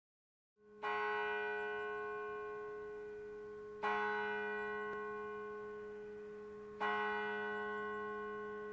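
A church bell tolling: three strikes about three seconds apart, each ringing on and slowly dying away before the next.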